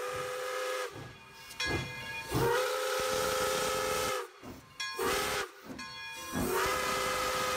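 Steam locomotive whistle blown over and over in long and short blasts, a steady two-note chord with steam hissing around it.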